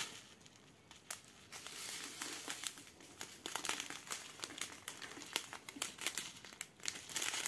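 Crinkling of a strip of thin plastic sachets of diamond painting drills being handled and flexed, a stream of irregular small crackles. It is faint for about the first second, then busier.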